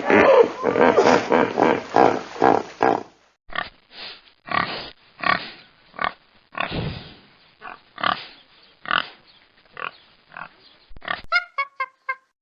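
Pigs grunting and squealing in a string of separate short calls. A denser, rougher stretch of calls fills the first three seconds, and a different animal's quick pitched calls start about a second before the end.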